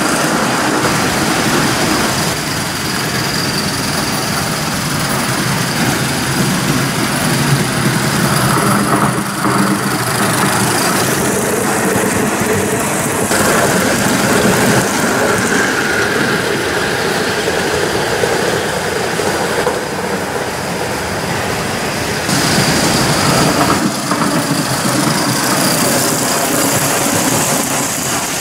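Gauge 1 model train running on the track: a steady, dense mechanical running noise of wheels and engine. The sound changes abruptly a few times.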